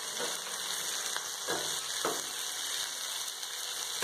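Green beans, onion and tomato sizzling in hot oil in a stainless-steel pan: a steady hiss of sautéing vegetables.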